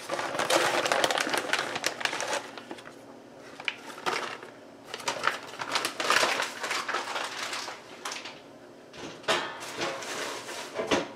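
Plastic pasta bag crinkling and rustling in irregular bursts as fresh fettuccine is shaken out onto a plastic cutting board.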